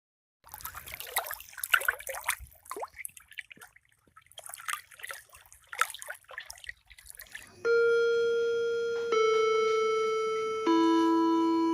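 Background soundtrack: about seven seconds of irregular splashing, trickling water-like sounds. From about two-thirds of the way in come long held ringing notes, a new one every second and a half or so, each a step lower than the last.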